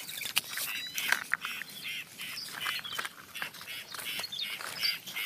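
Birds calling, a rapid run of short repeated calls.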